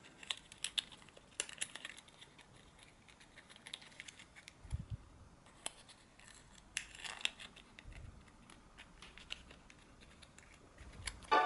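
Faint rustling and light clicks of small pieces of paper being folded, creased and pressed between the fingers, with a few soft bumps.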